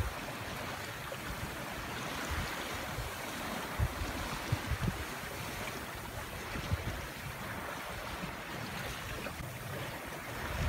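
Choppy open sea washing against a sailboat's hull, with a steady hiss of wind. Brief low buffets of wind on the microphone come a few times near the middle.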